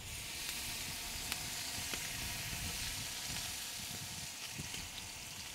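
Meat and vegetables sizzling in a pot hung over an open fire, stirred with a metal spoon: a steady sizzle with a few faint ticks.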